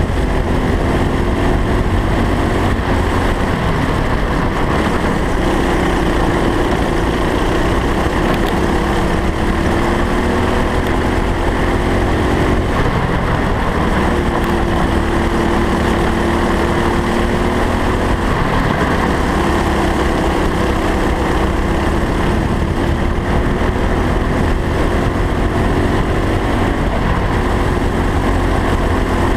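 Racing kart engine at full throttle on track, its pitch climbing and then dropping back several times as the driver accelerates and lifts, with a heavy wind rumble on the onboard camera.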